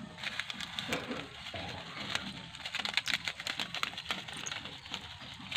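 Dense, irregular crackling and clicking from a steaming pot of mixed shellfish boiling over a fire, with a low steady rumble underneath.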